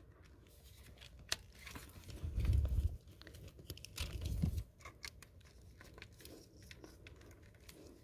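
Plugs being pushed into a flat power strip's outlets and cords being handled: scattered small clicks and rustling, with two dull low bumps about two and a half and about four seconds in. The plugs are a little hard to get in.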